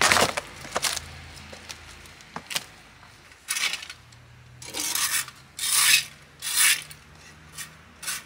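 Rotten wooden raised-bed frame giving a sharp crack at the start as it is pushed down underfoot, followed by a long-handled garden tool scraping over soil and debris in four long strokes about a second apart, with a shorter scrape near the end.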